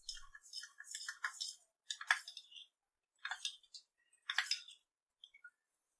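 Steel spoon stirring cornflour and water in a small steel cup, scraping and clinking against the metal: quick rapid scrapes for the first second and a half, then three sharper clinks about a second apart as the slurry is mixed smooth.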